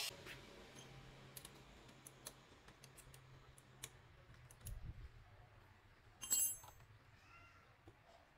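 Faint scattered clicks and small knocks of hands fitting a motorcycle carburetor and its hoses, with one brighter metallic clink a little past the middle, the loudest sound.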